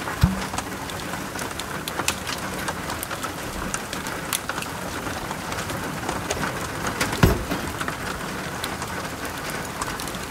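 Steady rain falling on the roof of a small wooden camper, with many scattered sharp drip taps. Two louder knocks stand out, one just after the start and one about seven seconds in.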